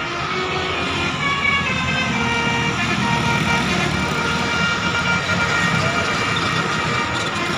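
Basuri telolet bus horn, a multi-trumpet musical horn, playing a tune of changing held notes over the low noise of the bus.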